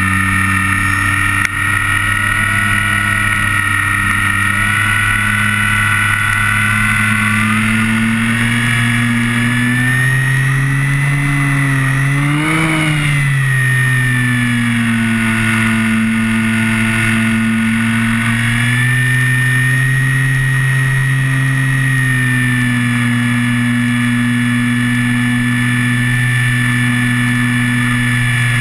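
Electric motor and propeller of a Multiplex Fun Cub RC plane in flight, heard from on board: a steady motor whine with propeller buzz. The pitch rises to a peak about twelve seconds in, falls back, and rises slightly again a few seconds later as the throttle or airspeed changes.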